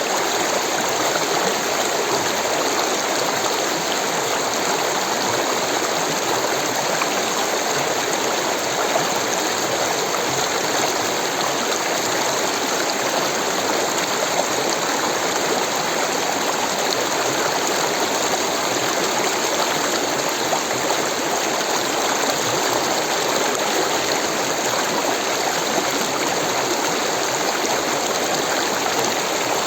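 Rushing water, a steady, even rush with no changes or distinct splashes.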